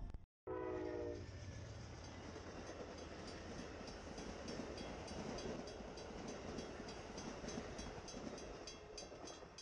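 A brief horn blast just after a sudden cut, then a steady rumble with a regular clatter that quickens toward the end.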